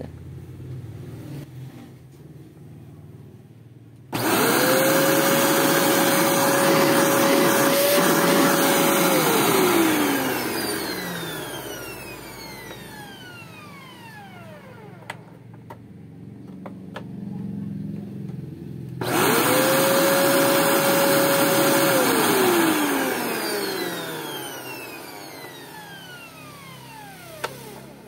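Homemaker EV-800-S16 vacuum cleaner motor, newly fitted with a 608Z bearing, switched on twice for a test run. Each time it starts abruptly and runs at a steady high whine, for about five seconds the first time and about three the second. It is then switched off and winds down with a falling whine that fades over several seconds.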